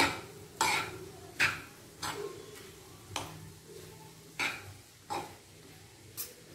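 Steel spoon knocking and scraping against a non-stick kadai while tossing noodles and fried rice, with about eight clacks at an uneven pace.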